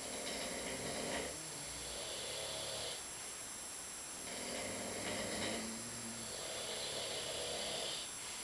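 Several sleeping men snoring together, their snores overlapping. The sound swells in long rough breaths about every four seconds, with lower snores running underneath.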